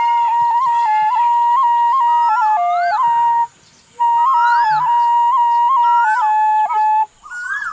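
Bansuri (Indian bamboo flute) playing a slow melody of held notes with quick grace-note flicks between them. It pauses briefly about three and a half seconds in and stops about seven seconds in.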